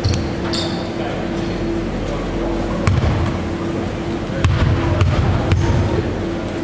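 A basketball bounced on a wooden sports-hall floor as a free-throw shooter's pre-shot dribbles: one bounce about three seconds in, then three more about half a second apart.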